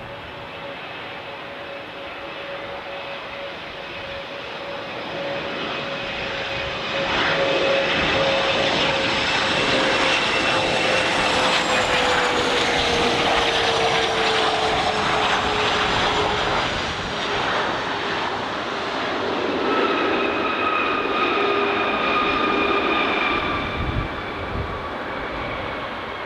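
Twin rear-mounted turbofans of a Bombardier CRJ-type jet landing. The engine whine and rumble build as it approaches, and the whine drops slowly in pitch as it passes close. A higher whine rises again in the last few seconds as it rolls out on the runway.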